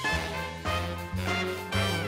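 Swing-style background music with brass and a bass line that changes note about every half second.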